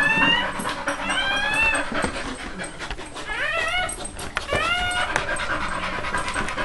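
Newborn pit bull puppy, minutes old, crying: four short, high squeals, each rising in pitch, a second or two apart.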